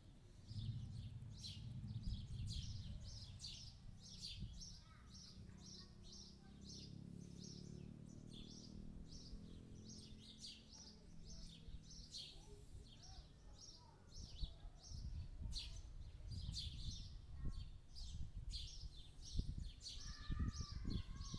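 Distant thunder rumbling, once about half a second in and again in a longer roll from about six to eleven seconds, under a steady string of short high chirps repeating about three times a second. Irregular low thumps come in over the last several seconds.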